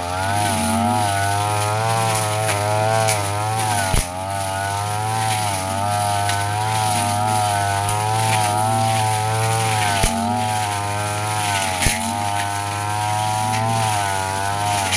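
Yasuka backpack brush cutter engine running at high speed as its blade cuts grass, the pitch wavering slightly as it sweeps through the growth. A few sharp clicks cut in along the way.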